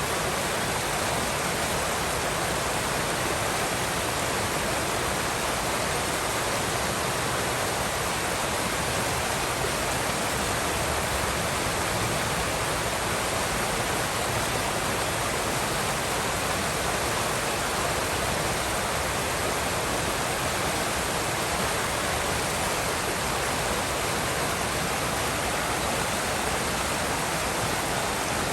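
Forest river rushing steadily, an even wash of water noise with no breaks.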